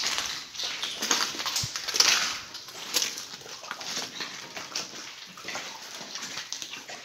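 Spirit box radio giving out choppy, hissing static that breaks up irregularly.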